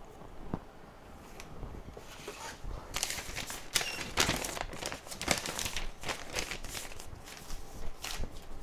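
Handling noise: irregular crinkling and clicking, busiest from about three to five and a half seconds in, with scattered single clicks before and after.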